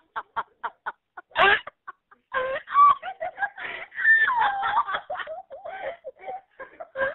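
A woman laughing hard: a quick run of short bursts, about five a second, then one loud burst about a second and a half in. After a short pause come longer wavering laughs whose pitch slides up and down.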